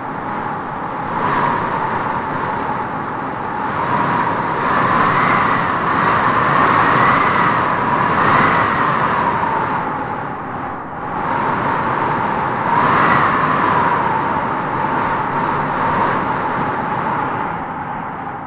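Wind howling in gusts: a steady rush with a whistling moan that rises in pitch and swells as each gust builds, then sinks back, easing off near the end.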